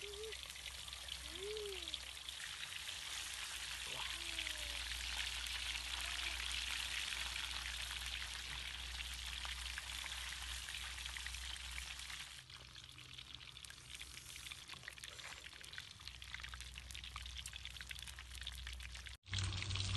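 Fish frying in hot oil in a wok: a steady crackling sizzle that eases off a little about two-thirds of the way through and cuts off abruptly just before the end.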